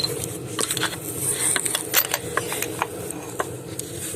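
Scattered sharp metal clicks and light scrapes as a spark plug on its socket and extension is worked down into a plug hole on a V6 engine.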